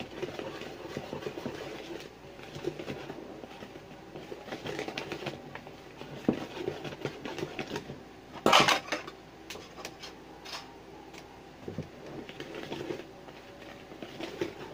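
Wire whisk mixing dry flour and cocoa powder in a plastic bowl: a continuous scraping with many small ticks as the wires brush the bowl, and one louder clatter about eight and a half seconds in.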